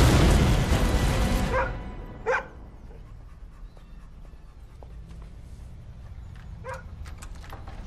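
A loud crashing rumble dies away over the first second and a half. A dog then barks twice in quick succession and once more near the end.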